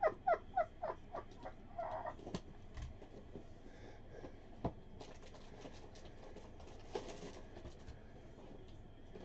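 A run of short squeaky chirps, about three a second, in the first second and a half. Then quieter rustling and a few light clicks as a cardboard trading-card box is handled and tilted.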